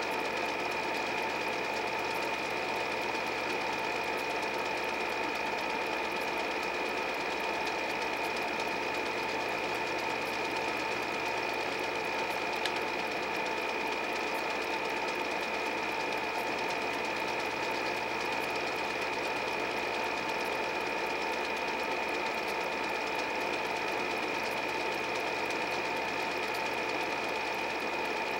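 Steady mechanical whirr of an 8 mm film projector running, with a constant high whine over it.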